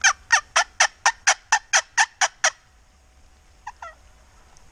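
Turkey yelping: a loud, close run of about eleven yelps at roughly four a second, then two fainter notes about a second later.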